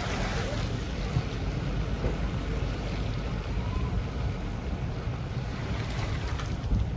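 Wind buffeting the microphone: a steady low rush of outdoor wind noise.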